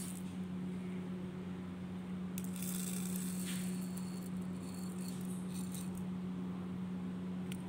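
Raw rice grains pouring from a small paper packet and rattling into a small plastic toy pot, for about two seconds starting a couple of seconds in, over a steady low hum.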